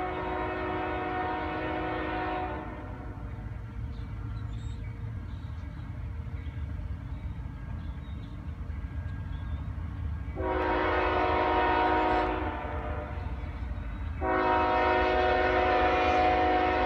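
Union Pacific freight locomotive's air horn, a chord of several notes, sounding three long blasts: one ending about two and a half seconds in, another starting about ten seconds in, and a third starting about fourteen seconds in and still going at the end. A steady low rumble runs underneath.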